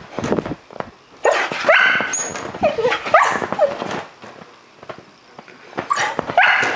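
A dog barking in three short bouts with quieter gaps between, worked up at a cat outside the window.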